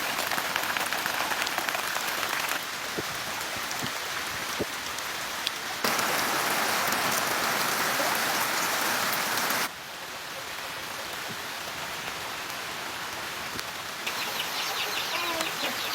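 Steady rain falling and pattering on surfaces. Its loudness jumps up or down abruptly several times.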